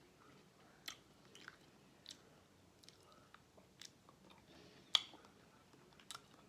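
Close-up mouth sounds of someone eating seafood boil food: faint wet chewing with scattered sharp lip-smacking clicks, the loudest a little before five seconds in.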